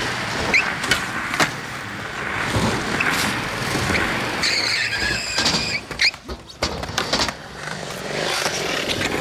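Skateboard wheels rolling on concrete, with several sharp clacks of the board. A brief high squeal comes about halfway through.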